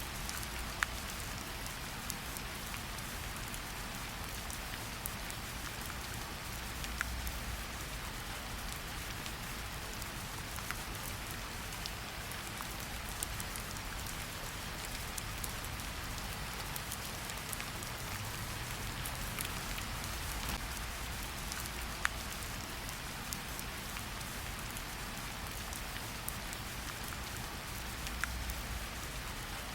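Steady rain falling in a forest, an even hiss with the sharp ticks of single heavier drops every few seconds.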